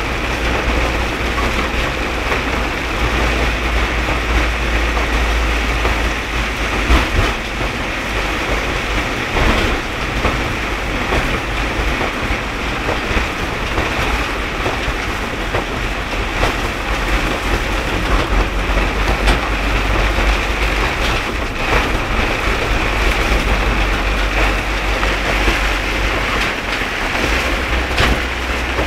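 Heavy rain falling, a steady hiss over a continuous low vehicle rumble, with a few sharp taps now and then.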